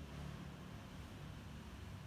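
Faint steady low rumble with light hiss: background ambience.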